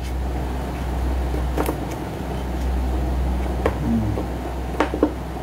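A steady low machine hum with a rushing noise underneath, and a few faint clicks about one and a half, three and a half and five seconds in.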